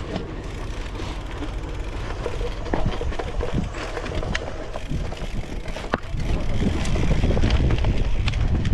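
Cyclocross bike ridden over a rough dirt course: wind rushing on the microphone and tyres on dirt, with frequent sharp rattles and clicks from the bike over bumps. It grows louder about two-thirds of the way through.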